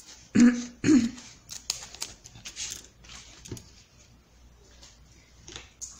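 Scissors cutting EVA craft foam: two sharp snips about half a second apart near the start, then faint handling sounds and a soft knock as the scissors are set down on the table.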